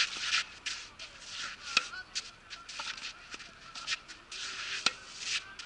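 Tennis rally on a clay court: two sharp racket-on-ball hits about three seconds apart, with fainter ball bounces and short bursts of scuffing from shoes sliding on the clay in between.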